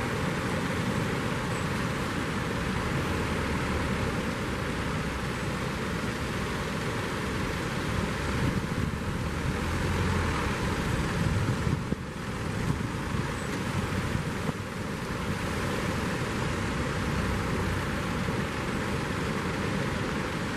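Steady rushing of breaking surf on a beach, with wind on the microphone, swelling a little about halfway through.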